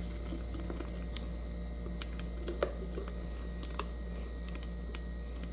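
Thick milk-powder cream (creme de ninho) pouring into a plastic tub, with soft squelching plops and scattered light clicks over a steady low hum.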